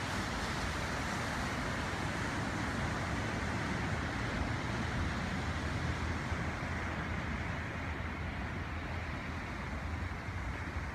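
Steady wash of small waves breaking on a beach, mixed with wind rumbling on the microphone, with no distinct events.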